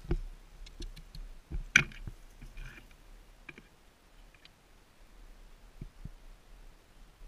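Scattered clicks and knocks of handling noise as a climber moves among tree branches close to a head-mounted camera, the sharpest knock about two seconds in.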